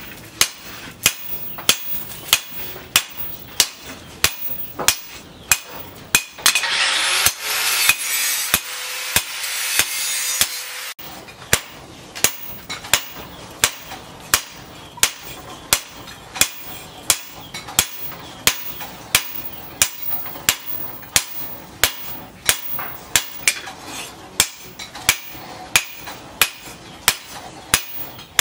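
Hand hammer striking a red-hot steel knife blade, forged from a tractor disc-plough disc, on a post anvil, in a steady rhythm of about one and a half sharp blows a second. From about six to eleven seconds in, a loud hiss sounds under the blows and cuts off suddenly.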